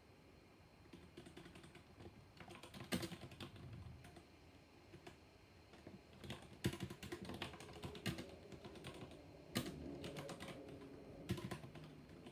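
Typing on a mechanical keyboard with black switches: runs of quick, uneven keystrokes starting about a second in, with a few louder single strikes among them.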